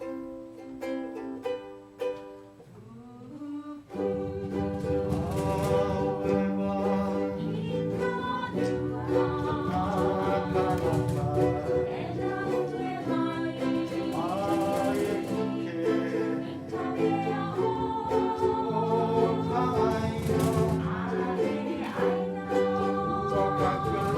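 Ukulele ensemble strumming a short, sparse intro, then from about four seconds in a child sings over the fuller ukulele accompaniment.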